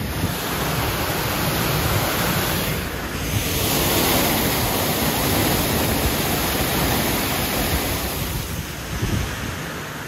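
Rushing, splashing water of a river rapids ride channel, with a waterfall pouring close by, loudest and hissiest from about three to eight seconds in.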